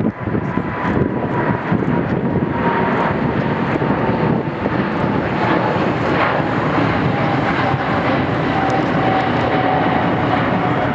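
A Boeing 777-200F freighter's twin GE90 turbofans at takeoff thrust as it climbs out: a steady, loud jet roar with a thin high whine that slowly falls in pitch.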